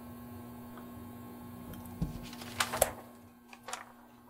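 Pen writing on paper, then a few short paper rustles about two to three seconds in, over a steady low hum.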